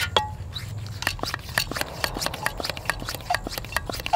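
MSR Whisperlite fuel bottle being pressurised by hand with its pump: the plunger stroking in and out makes a quick, uneven run of clicks and rubbing, with a couple of short squeaks.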